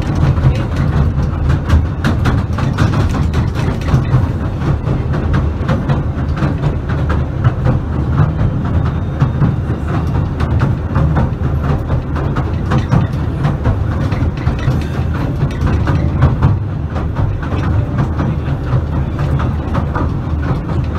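Southend Pier Railway train running along the pier, heard from inside the carriage: a steady low rumble with a rapid, irregular clatter of wheels on the rails.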